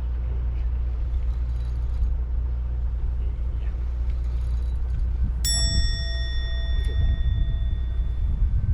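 A steady low rumble runs throughout. About two-thirds of the way in, a single bright metallic ding sounds and rings out for a couple of seconds.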